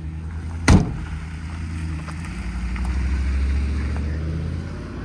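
A truck cab door shuts with a single loud thud about a second in, over the steady idle of the Ram 5500's Cummins inline-six turbo-diesel.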